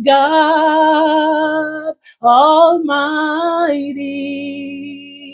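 A woman singing a slow worship song, holding long notes with vibrato. After a short breath about two seconds in, she sings 'God' on a rising note that then holds and slowly fades.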